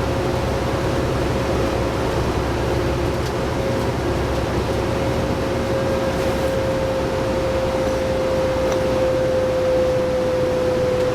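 Interior noise of a 2011 New Flyer D60LFR articulated diesel bus under way, its Cummins ISL9 engine and Allison B500R automatic transmission giving a steady low drone. A steady whine rides on top and drifts slightly lower in pitch near the end.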